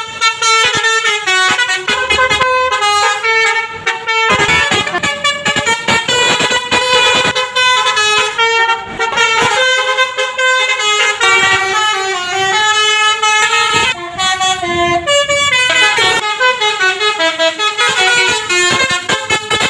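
Basuri 'telolet' multi-tone musical bus horn playing a loud melody, notes stepping up and down one after another without a break.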